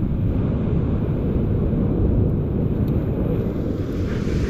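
Strong wind buffeting the microphone as a steady low rumble, with the hiss of surf rising near the end.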